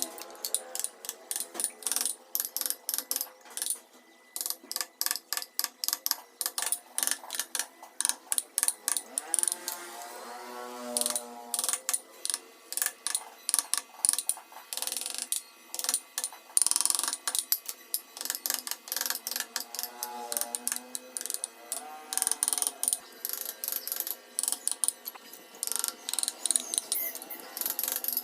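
Wood-carving tools cutting into wood: quick, irregular runs of sharp clicks and ticks, with a few short squeaking tones now and then.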